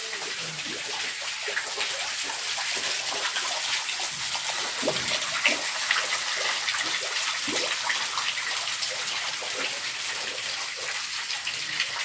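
Water dripping and trickling off a rock overhang into a shallow rock pool, a steady splashing hiss made of many small drops: the low dry-season flow of a waterfall that runs fully only in the rains.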